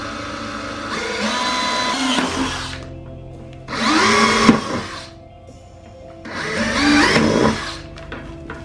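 DeWalt cordless drill boring three holes through the side of a plastic 5-gallon bucket: three separate bursts of drilling, the motor pitch rising and falling as the bit bites through the plastic. Faint background music underneath.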